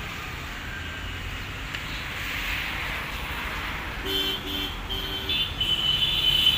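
Road traffic noise, then from about four seconds in vehicle horns honking in a series of short toots, followed by a higher-pitched horn sounding in longer blasts near the end.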